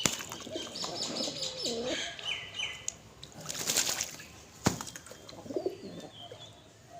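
Doves cooing in low, swooping calls twice, mixed with higher chirps from small birds and a short noisy burst about halfway through.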